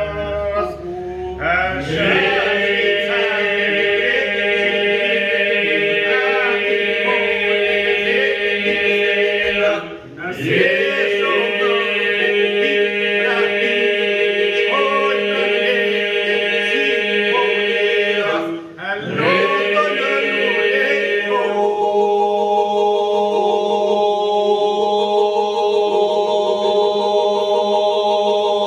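A group of men singing a Lab polyphonic song a cappella: several voices hold a steady drone while lead voices carry a winding melody above it. The singing breaks off twice, near ten and near nineteen seconds, for a breath and starts again.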